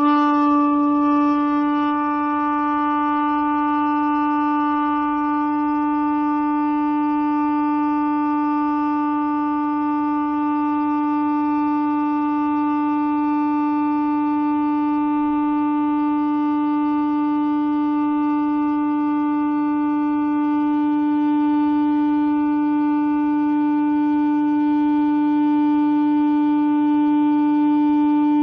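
A shofar blown in one long, unbroken, steady note held for nearly half a minute, with a short upward scoop in pitch as the blast begins.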